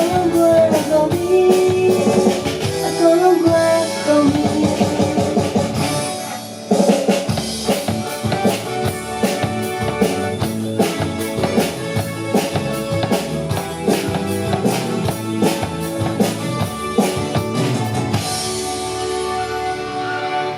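A live pop band plays with a steady drum-kit beat and backing instruments, and a singer's voice comes through near the start.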